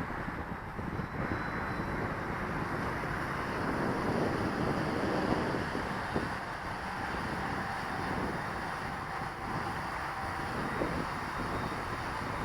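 Gusty wind buffeting the microphone with a continuous rumble, over a faint steady whine from a quadcopter's electric motors.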